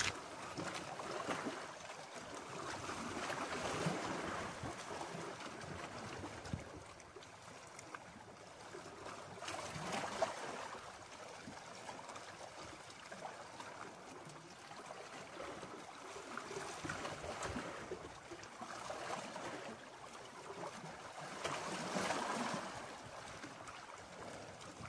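Small sea waves washing against shoreline rocks, swelling and easing every five or six seconds.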